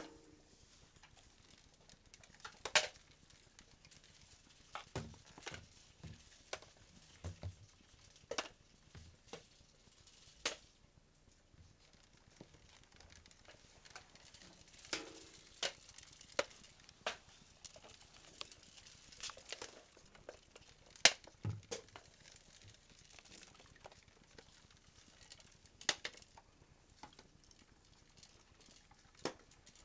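Plastic hamster exercise balls rolling about with a hamster running inside each, giving irregular sharp clicks and knocks as the balls bump into things. The loudest knocks come about three seconds in and about twenty-one seconds in.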